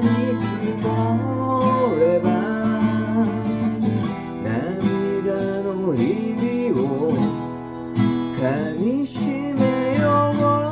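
Acoustic guitar strummed, with a voice singing a melody over it.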